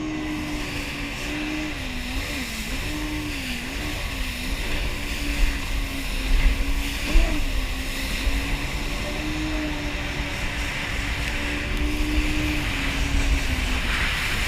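Yamaha jet ski engine running under way, its pitch wavering up and down with the throttle a few times early on, over a steady rush of wind and water.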